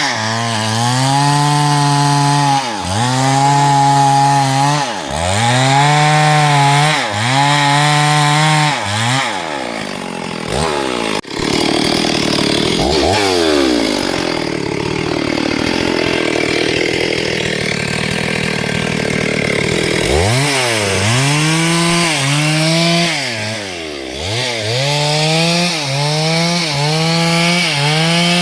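STIHL MS382 two-stroke chainsaw cutting hardwood. Its engine note sags under load and climbs back about once a second as the chain bites into the wood. There is a sharp knock about eleven seconds in, and in the middle stretch the steady engine note breaks into a noisy rush of cutting before the sag-and-recover pattern returns.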